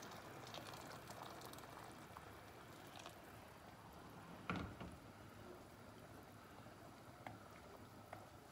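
Hot water poured faintly from an electric kettle into a pot of stew for the first second or two, then quiet stirring with a wooden spoon and a single knock about halfway through.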